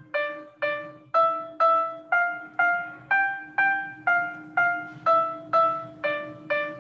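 Soundtrap's virtual grand piano playing a student's melody one note at a time, about two notes a second, climbing in pitch for the first few seconds and then stepping back down, over a low steady hum.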